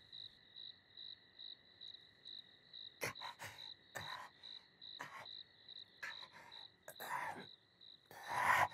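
Night-time ambience of chirping crickets: an even high chirp pulsing about three to four times a second over a faint steady high tone. From about three seconds in, several short faint noises break in, the longest near the end.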